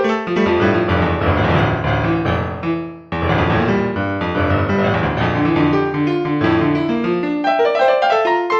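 Piano music: a flowing run of many notes and chords that dies away about three seconds in, then starts again at once.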